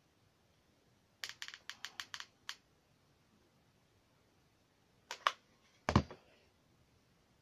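Hot glue gun in use on a card and lolly-stick model: a quick run of about seven sharp clicks, then two more clicks and a heavier knock about six seconds in.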